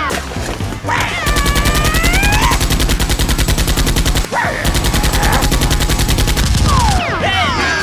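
Rapid automatic gunfire, about a dozen shots a second, in two long bursts with a brief break about four seconds in.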